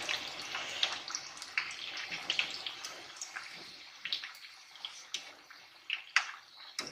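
Half-moon pastries deep-frying in hot oil in a wok, sizzling and crackling with sharp pops. The sizzle thins out after about three seconds, leaving scattered pops.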